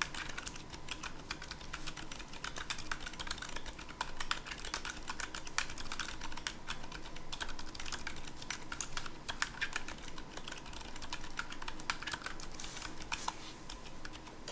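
Continuous fast typing on a mechanical keyboard with lubed 68g Gazzew Boba U4 silent tactile switches: a dense, irregular run of muted keystrokes that stops right at the end.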